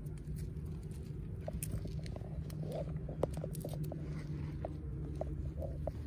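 Dry potting soil crumbling and crackling as fingers break it off a succulent's root ball, with many small irregular ticks and rustles over a steady low hum.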